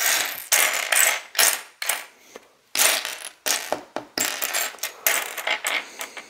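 Plastic LEGO pieces clicking and clattering as they are handled and fitted together: a quick, uneven run of sharp clicks, about a dozen.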